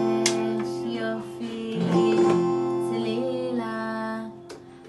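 Arkana adaptive electronic instrument playing guitar-like strummed chords that ring on, the chord changing about two seconds in and again near the end.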